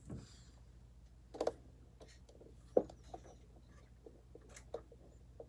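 Scattered clicks and knocks of hands handling parts inside a desktop computer case while undoing cable latches, about half a dozen short taps, the sharpest near the middle, over a faint steady low hum.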